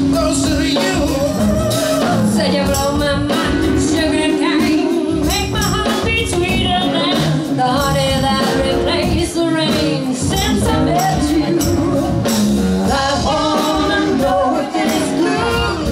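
A live band playing: drum kit, electric guitar and bass under women singing with vibrato, at a steady loud level.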